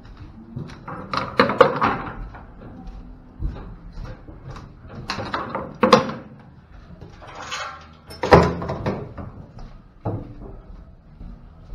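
Metal gates and latches inside a cattle trailer clanking and banging as they are swung shut and latched, with a string of sharp knocks and three loud bangs: one near the start, one midway, and one about two-thirds through.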